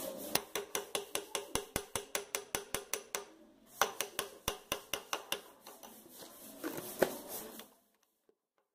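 Spoon stirring a thick chocolate brigadeiro mixture in a white ceramic ramekin, clicking against the bowl about five times a second. It pauses briefly a little past three seconds in, then resumes more softly and cuts off near the end.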